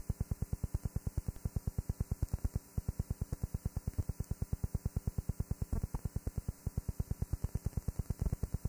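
A rapid, even pulsing buzz, about ten pulses a second.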